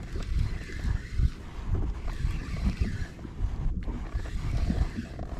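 Wind buffeting the microphone in uneven gusts, mixed with the rustle of a sleeve brushing close against it while a small fish is reeled in.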